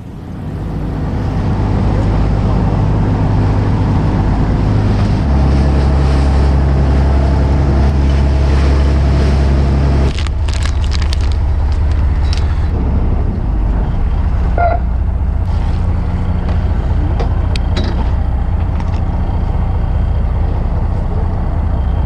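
Fishing boat's engine running loud and steady as the boat gets under way, its note shifting about five seconds in. About ten seconds in the sound changes to the engine's drone with a rush of water, and a few sharp clicks of tackle being handled.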